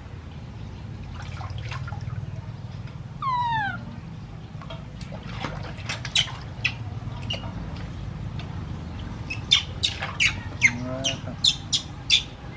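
Baby macaque giving one falling squeal a little after three seconds in, amid wet hands splashing water in a steel basin; a quick run of short sharp squeaks and splashes follows, loudest near the end as it is lifted out of the water.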